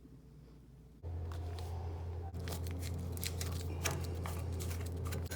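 A steady low hum that starts suddenly about a second in, with scattered clicks and rustling handling noises over it.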